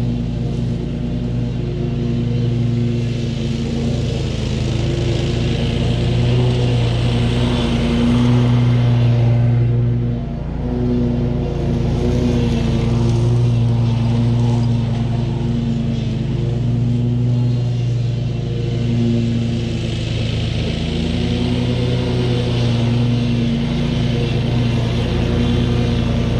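SCAG V-Ride 2 stand-on commercial mower's engine running steadily while mowing, its pitch and loudness swelling and easing a little, with a brief dip about ten seconds in.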